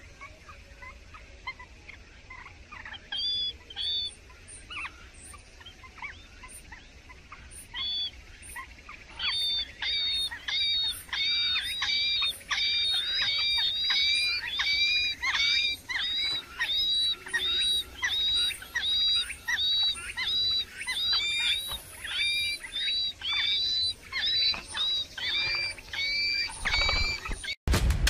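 Songbird nestlings begging in the nest: short, high chirps, scattered at first, then repeated about twice a second and louder from about a third of the way in.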